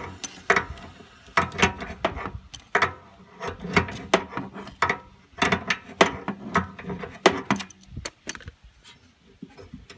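Crescent wrench clinking and scraping against the gas-line nut at an RV furnace's gas valve: a run of irregular, sharp metal clicks that thins out near the end.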